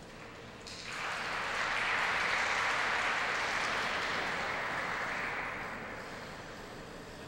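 Audience clapping in an ice rink, coming in about a second in, holding for a few seconds and then fading.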